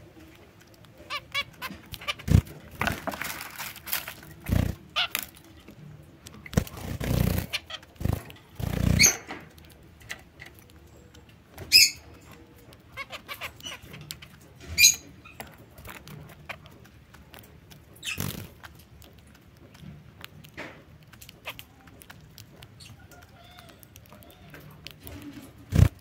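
Zebra finches feeding at a seed tray: scattered pecking clicks and rustling in the seed, with a few louder rustles. Two short, sharp calls stand out, about twelve and fifteen seconds in.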